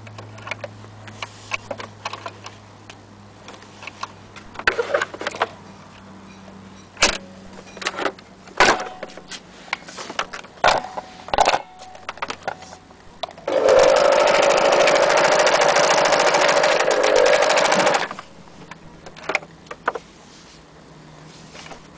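Italian-made Singer electric sewing machine running steadily for about four seconds, stitching through denim, then stopping abruptly. Before it comes a string of scattered clicks and knocks.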